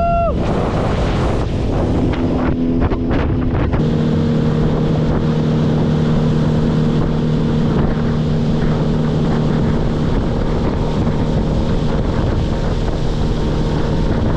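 Boat's outboard motor running at speed, a steady drone that comes through more clearly about four seconds in, with wind buffeting the microphone.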